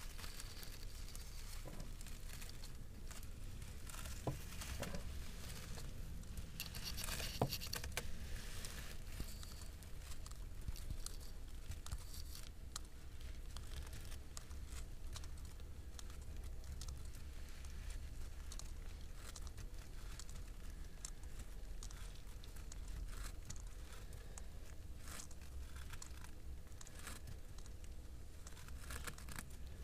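Scattered rustling, scraping and crackling as eastern blue-tongued skinks shift their scaly bodies against the camera and the grass, over a steady low rumble. A denser cluster of crackles comes about seven seconds in.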